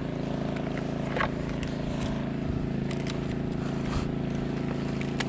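Tractor engine running steadily at a constant speed, driving a water pump that drains a pond, with a few faint clicks over it.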